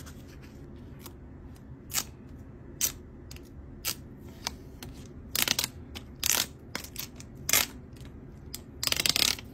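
Fingernails tapping and rubbing on the clear plastic protective film over a new iPhone's screen, giving short, sharp clicks and crackles of the film. They are sparse at first, then louder and bunched in the second half, with the loudest cluster near the end.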